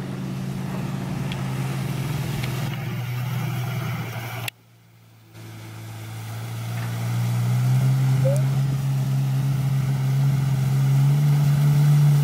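Jet ski engine running at speed with a steady drone, growing louder as the craft heads straight toward the listener. The sound drops out briefly a little before halfway.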